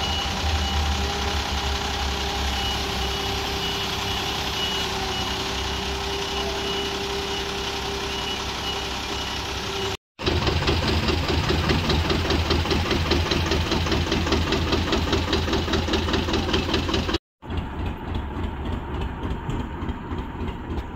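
Heavy forklift's diesel engine running with a high, rapidly repeating beeping warning tone and a steady whine. After an abrupt cut, a louder engine chugs with a fast, even beat, and after a second cut a tractor engine chugs more quietly.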